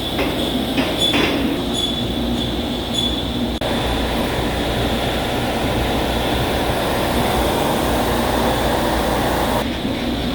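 CNC machine tool cutting a ductile cast iron (GCD500) tire mold segment: a steady grating cutting noise under a high-pitched whine, with a few sharp clicks in the first seconds. The cutting noise grows fuller about a third of the way in and thins out near the end.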